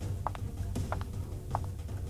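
Background music with a steady clicking beat, a little under two clicks a second, over a low steady hum.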